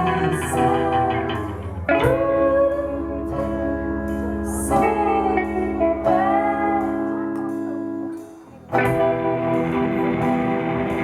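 A live band playing, with guitar to the fore. The sound drops away briefly about eight seconds in, then the band comes back in.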